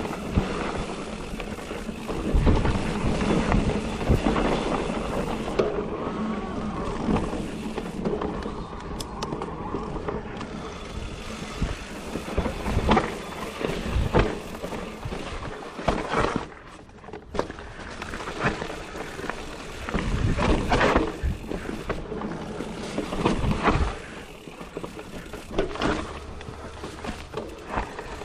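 Wind rushing over the microphone and tyres rolling on a dirt trail while riding a Giant Reign E+ electric mountain bike, with frequent knocks and rattles as the bike goes over rough ground.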